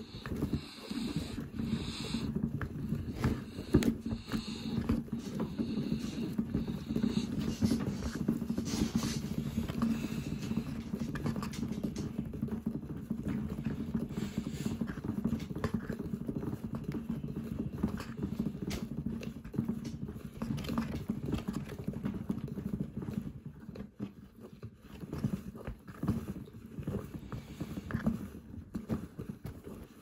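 Handmade toy washing machine running: its small motor hums steadily as the plastic drum turns, with irregular knocking and rattling from the drum and the wet towel tumbling inside. It grows quieter and sparser for a few seconds near the end.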